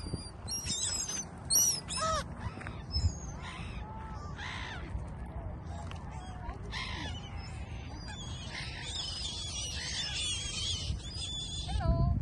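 Gulls and other waterbirds calling at a lake: a busy run of short, harsh, squawking calls, thickest near the start and again in the last few seconds, over a low steady rumble.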